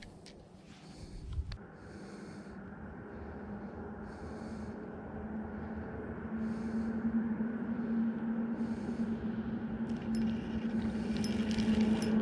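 Spinning reel being cranked steadily as a fish is reeled in, its gears giving a low steady hum that grows louder toward the end. A short high sound repeats about every two seconds in the background.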